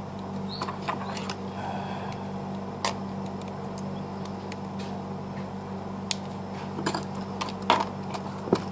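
Scattered small clicks and taps of a plastic smartphone body and a metal repair tool being handled, over a steady low hum.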